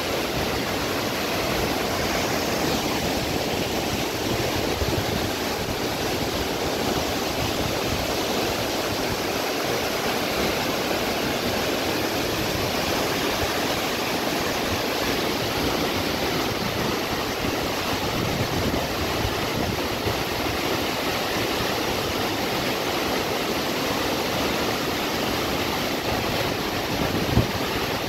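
Tall waterfall plunging onto rocks and the stream rushing over the boulders below it: a steady, dense rush of falling water. A single brief knock sounds near the end.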